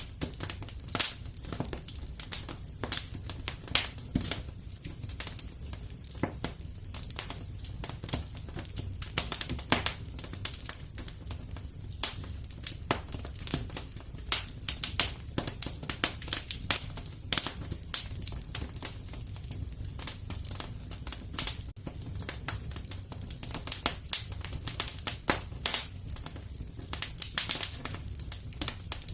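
Wood fire crackling in a fireplace: many sharp pops and snaps at irregular intervals over a low, steady rumble.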